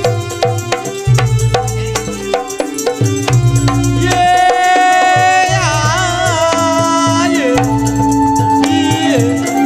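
Live campursari music: hand-drum strikes and rattling percussion keep a steady beat under sustained melodic notes. A long wavering melody line rises in the middle.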